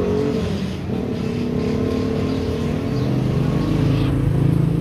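A motor engine running, its pitch wandering up and down and settling lower about three seconds in.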